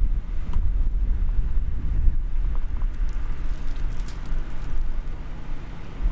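Wind buffeting the microphone outdoors, a loud, uneven low rumble with a few faint ticks mixed in.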